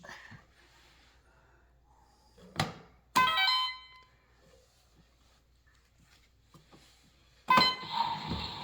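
A knock, then a short electronic chime, and near the end a louder electronic jingle of several tones over a hissing noise.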